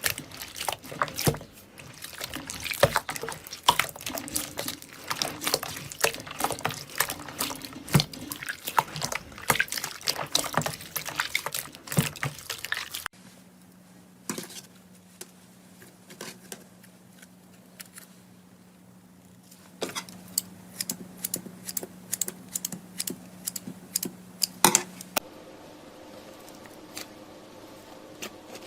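Slime handled by hand, making rapid wet clicks and pops. It is dense for about the first half, then much sparser after a sudden cut, with a faint steady hum under the later clips.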